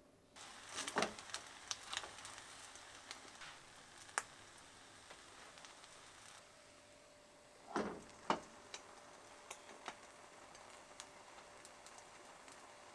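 Egg-soaked bread frying in butter in a hot iron frying pan: a steady sizzle with scattered crackles and pops, starting just as the slice goes in. A louder burst of sizzling with a knock comes about eight seconds in.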